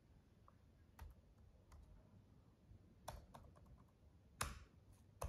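Faint, irregular taps and clicks of fingers working a device, a handful spread over a few seconds, the loudest about four and a half seconds in.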